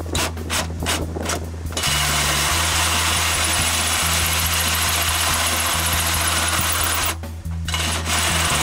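Cordless drill driving a 4-inch hole saw into a painted sheet-metal car fender. The cut starts as a quick stuttering rasp, about five strokes a second, then runs as a continuous grinding cut from about two seconds in, easing off briefly near the seven-second mark before biting again.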